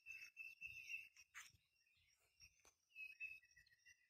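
Near silence: faint outdoor ambience with a thin, high-pitched call that drops lower about three seconds in, and a few soft ticks.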